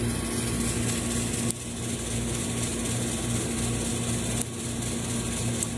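Steady mechanical hum of a running motor or engine, one constant low tone over a faint hiss, with two faint clicks partway through.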